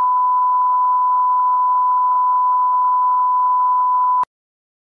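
Steady single-pitch test tone, the reference tone that goes with SMPTE colour bars, with a faint hiss around it; it cuts off suddenly near the end.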